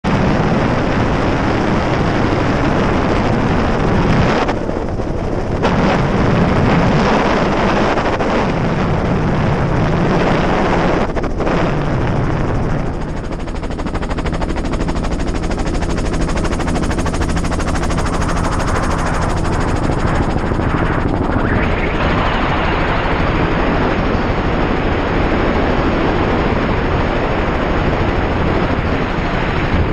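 Strong wind buffeting a GoPro's microphone: a loud, continuous rushing rumble that eases briefly a few times.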